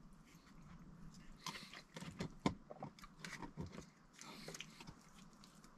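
Faint eating sounds: steak being chewed, with several short light clicks of wooden chopsticks picking food off a wooden cutting board.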